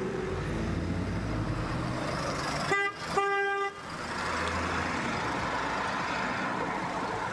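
A car drives up with a steady engine and tyre noise and sounds its horn twice about three seconds in, a short toot followed by a longer one, then rolls to a stop.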